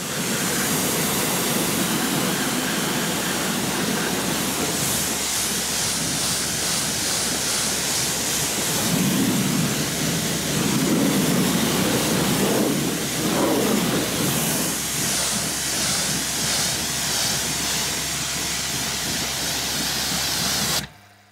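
Kranzle K7 pressure washer's fan jet of water spraying against a car's alloy wheel and wheel arch: a steady, loud hiss of spray, fuller for a few seconds in the middle, that cuts off suddenly near the end.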